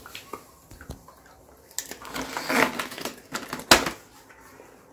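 Small dog chewing a hard dental chew treat: irregular crisp crunches and clicks, thickest in the middle and with one sharp, loud crunch near the end.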